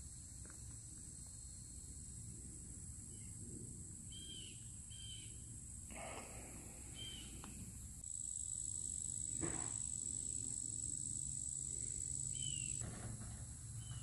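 Outdoor insect drone, a steady high buzzing that grows louder about halfway through, with a few short bird chirps and a couple of soft knocks over a low rumble.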